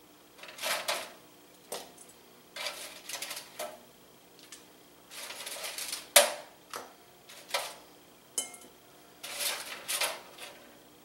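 Metal kitchen tongs clacking and scraping against a saucepan, a foil tray and a ceramic bowl while chicken wings are lifted and tossed in sauce. The sound comes in short, uneven bursts of clatter, the loudest a sharp clack about six seconds in.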